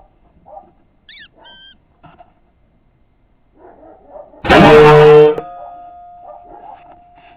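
A single loud shot from a Weihrauch HW97K spring-piston air rifle about halfway through, cutting off sharply and leaving a faint tone ringing on. Faint scattered sounds come before it, with two short chirps about a second in.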